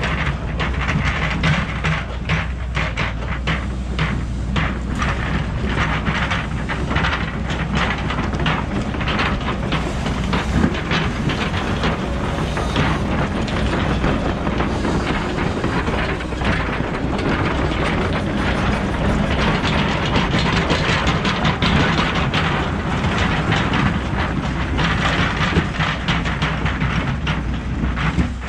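Cat 314E excavator's diesel engine running steadily under working load, with frequent irregular clanks and scrapes of steel on rock and dirt as the machine spreads and packs fill.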